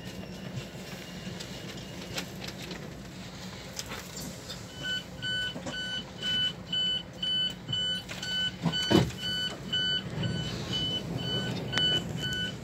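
Steady low hum inside an ICE 4 carriage. About five seconds in, the train's door signal starts beeping, about two beeps a second, as the doors are released at the station. There is a dull thump near the nine-second mark.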